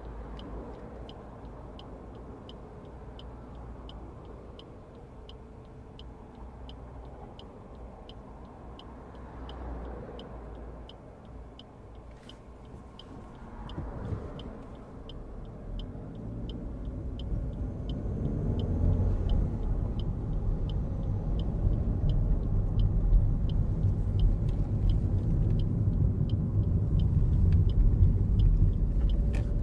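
Inside the cabin of a 2023 Suzuki Swift with a 1.2-litre petrol engine and manual gearbox: the turn-signal indicator ticks steadily, a little under two ticks a second, over low engine and road rumble. From about halfway the engine pulls harder and the rumble grows louder as the car accelerates.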